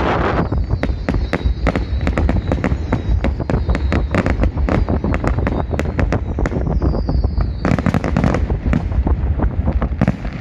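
Fireworks display: a rapid, continuous run of sharp bangs and crackles from bursting shells. A high whistling tone runs through the first part, slides down and cuts off about eight seconds in, over a constant low rumble.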